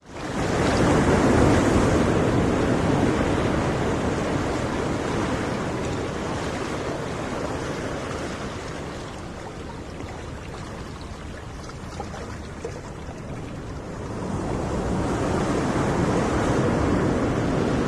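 Ocean waves washing in. The sound cuts in suddenly with a wave surging, ebbs away over several seconds, and another wave swells in about fourteen seconds in.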